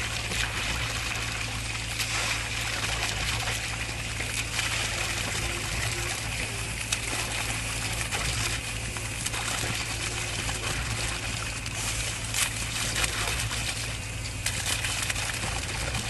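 Diesel engine of a concrete mixer pump running with a steady low hum, with wet material trickling and splattering over it.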